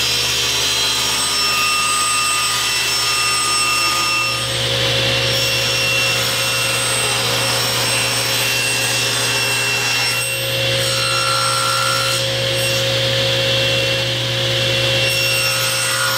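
SawStop table saw running with its blade cutting 1/2-inch ABS plastic stock: a steady motor hum and blade whine with cutting noise. The tone shifts about four and ten seconds in as the cut changes.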